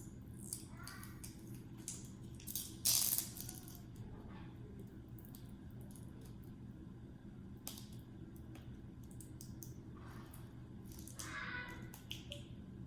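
Small plastic toy packaging being handled and unwrapped by hand: scattered light clicks and rattles, with a louder rustle about three seconds in and another near the end.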